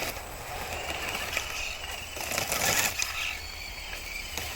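Radio-controlled rock crawler climbing a dirt hill: electric motor and gear whine coming and going, with scraping and scrabbling from the tyres on dirt and roots.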